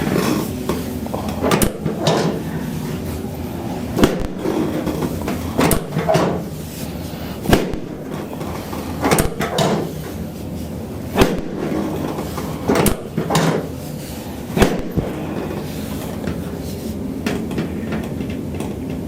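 Chiropractic adjustment of the back: about eight sharp knocks and clunks, one every couple of seconds, stopping about fifteen seconds in.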